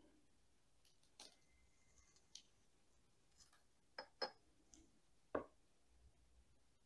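A few faint, sharp clicks and ticks, two close together about four seconds in: fine akadama and lava bonsai soil being spooned from a small scoop into a tiny unglazed bonsai pot, the grains and the scoop tapping against the pot.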